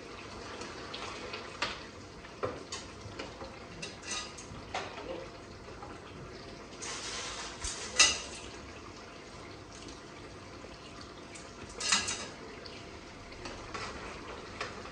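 A utensil scraping and knocking against a karahi as the steamed, peeled tomatoes are mashed down, in scattered taps. The sharpest knock comes about eight seconds in, and a short cluster of knocks comes around twelve seconds.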